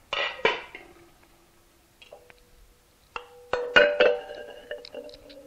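Glass slow-cooker lid set down on a stone counter with two sharp clinks. About three seconds in, glass mason jars with metal lids are set down into the ceramic crock, clinking several times. The loudest clink comes about four seconds in, and the glass rings on and fades.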